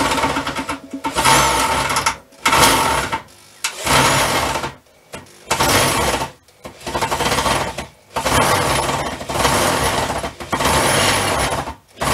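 Green Bosch power drill run into wood in about ten short bursts of roughly a second each, the motor whine stopping and starting between them.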